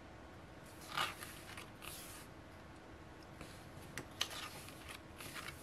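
A few brief rustles of packaging and paper goods being handled, the loudest about a second in, with a sharp click just before four seconds.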